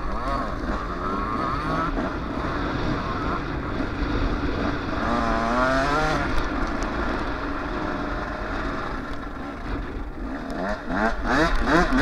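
Yamaha YZ125 single-cylinder two-stroke dirt bike engines revving up and down while riding, with the pitch climbing in quick repeated sweeps near the end as the throttle is worked through the gears. Wind buffets the microphone.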